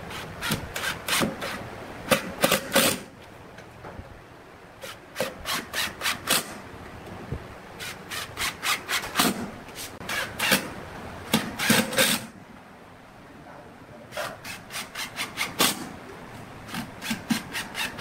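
Makita cordless impact driver driving screws into a pine box. It runs in about five spells of short, rasping bursts, roughly five a second, with brief pauses between screws.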